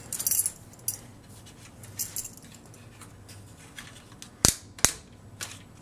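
Hard plastic clicks and rattles as the parts of a large all-plastic Fans Hobby MB-08 Double Evil robot figure are handled and moved, with a short rattle near the start and two sharp clicks about half a second apart a little past four seconds in.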